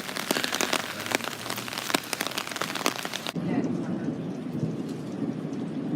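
Heavy rain falling close to the microphone, a dense hiss with many sharp drop hits. About three seconds in the sound changes abruptly to a quieter rain hiss over a low, steady rumble.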